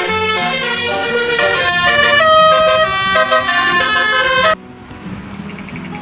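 Telolet basuri bus horn playing a tune of held notes that step up and down in pitch. It cuts off sharply about four and a half seconds in, leaving a quieter hum.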